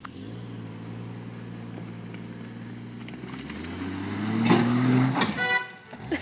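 Jeep Cherokee XJ engine running at low revs, then revving up under load as it climbs a steep dirt bank, loudest near the top of the climb. A short steady high tone follows about five and a half seconds in.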